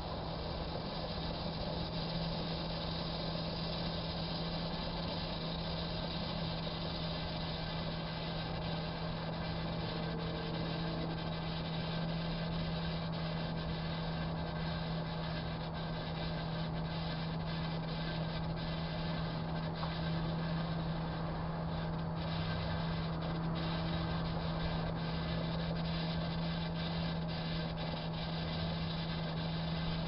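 Microwave oven running: a steady low hum with fan hiss. Faint crackling ticks, more frequent in the second half, come as an open bottle of Elmer's school glue boils and foams up inside.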